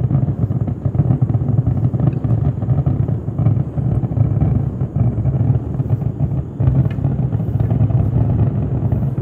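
Kerala temple fireworks (vedikettu): a dense barrage of firework explosions so close together that they merge into one continuous rumble.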